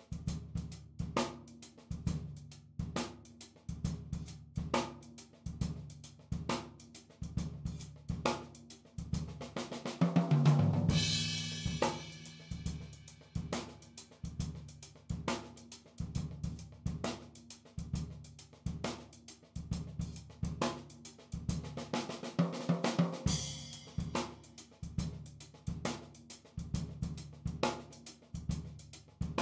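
Drum kit playing a steady beat, with a fill and cymbal crash about ten seconds in and again around twenty-three seconds.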